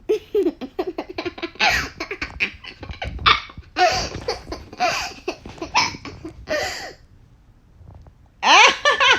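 A baby laughing in repeated bursts of quick giggles, with a short lull about seven seconds in and a loud, high laugh near the end.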